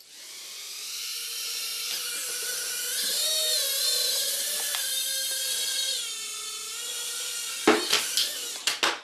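Tiny electric motors of a toy mini-quadcopter whining as it spins up at the start, the pitch wavering up and down with the throttle. The whine fades near the end, followed by a few sharp clicks.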